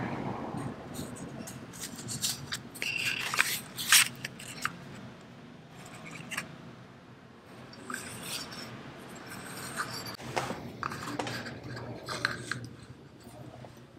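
Paper business cards being handled and slid into a small wooden card box: scattered light scrapes, taps and rustles, with the box set down on a stone counter near the end.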